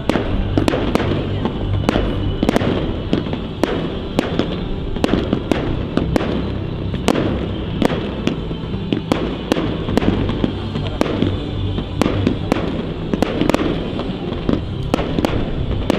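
Fireworks display going off in a continuous barrage: rapid sharp bangs and crackle several times a second over a steady rumble.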